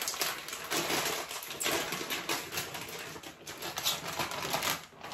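Plastic snack bag of honey butter popcorn crinkling and crackling in the hands as it is opened, in irregular rustling bursts that die away near the end.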